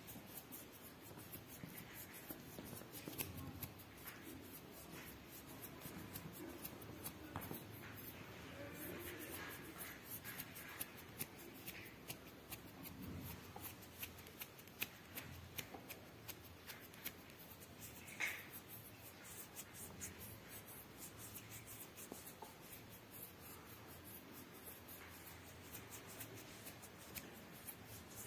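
Faint scratching and rustling of kittens' paws and claws on a fabric cat bed, with many small clicks.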